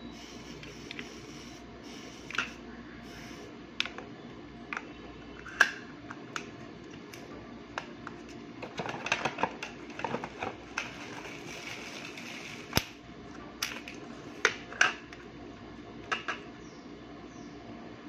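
Irregular small clicks and taps of a soldering iron and small electronic parts being handled and set down on a workbench, busiest about halfway through. A brief rustle of plastic packaging follows just after.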